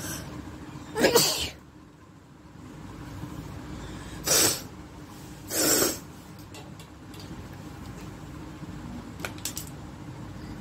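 A woman sneezing three times, each a short, sharp burst: the first about a second in, then two close together around four and a half and six seconds in.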